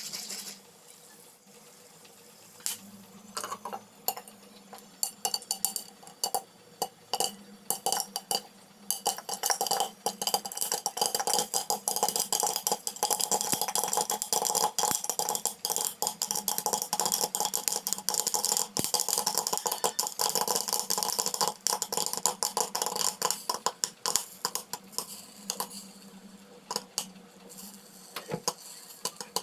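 Popcorn popping: a few scattered pops about three seconds in, building to rapid, almost continuous popping through the middle, then thinning back to occasional pops near the end.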